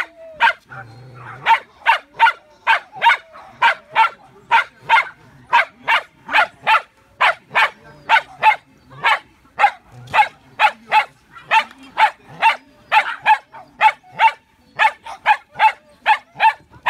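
A dog barking non-stop in quick, sharp barks, about two to three a second.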